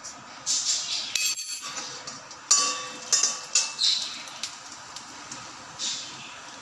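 Cumin seeds sizzling and crackling in hot oil in a steel kadhai, with irregular pops and a few metallic clinks of steel utensils against the pan. The sharpest, ringing clink comes about two and a half seconds in.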